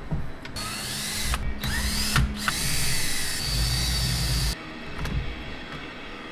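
Cordless drill/driver backing out the screws of a chainsaw's rewind cover, its motor whining up to speed in three runs over about four seconds. A few light clicks follow as the cover comes loose.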